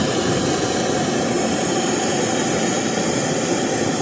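Brazing torch flame burning with a steady hiss, heating the copper suction line to braze on a replacement service valve.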